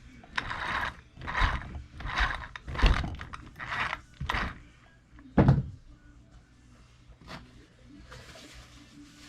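Small plastic and metal RC truck parts and tools being handled at a workbench: a run of short scraping rustles about every three-quarters of a second, with a sharp knock near the middle and a louder thump about five and a half seconds in.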